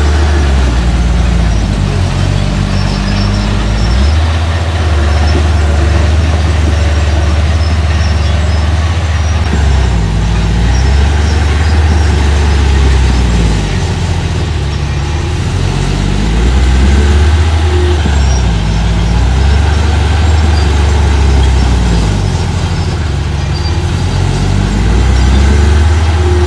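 Engine of a small construction machine running loud and low, its speed dipping and picking up again several times.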